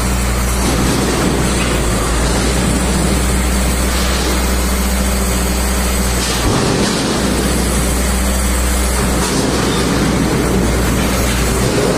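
KAMAZ truck's diesel engine running steadily at idle, a low even drone, with rougher noise swelling and fading now and then.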